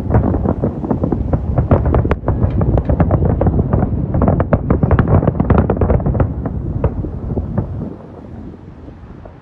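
Aerial fireworks going off in a dense barrage of overlapping bangs and crackles over a low rumble, thinning out and falling quieter about eight seconds in.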